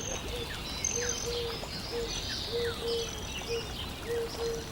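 Birds chirping: many short falling chirps and high whistles, over a steady run of short, repeated low notes.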